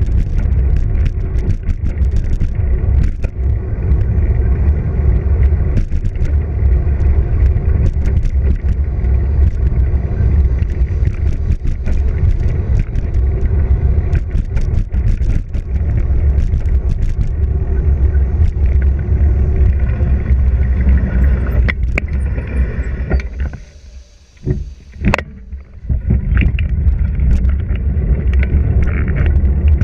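Wind buffeting the microphone of a bicycle-mounted action camera while riding, a heavy low rumble with tyre noise on asphalt and frequent small rattles and clicks. The rumble falls away for a couple of seconds about three-quarters of the way through, broken by a couple of knocks, then comes back.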